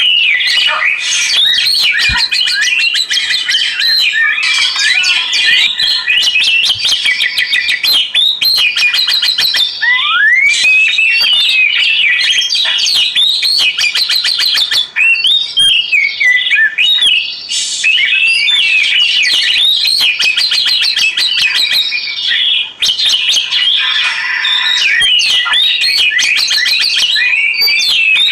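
Oriental magpie-robin (kacer) singing without pause: a loud, varied song of gliding whistles, trills and fast chattering notes.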